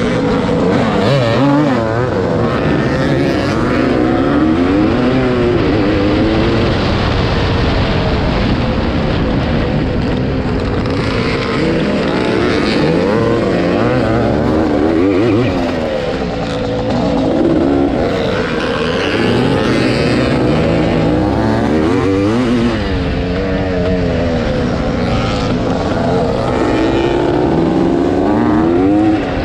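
On-board sound of a Yamaha YZ465 two-stroke single-cylinder motocross engine racing, its pitch rising and falling again and again as the rider throttles out of turns and shifts, with other motocross bikes running close ahead.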